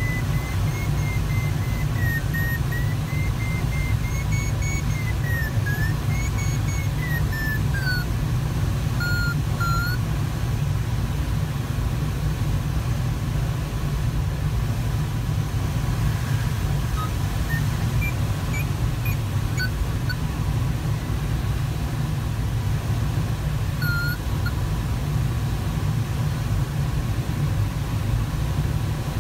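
Steady rush of airflow in the cockpit of a Sparrowhawk ultralight glider in flight. Over it, an electronic variometer tone wavers up and down in pitch for about the first ten seconds, and a few short beeps follow later. The tone's pitch signals climb or sink.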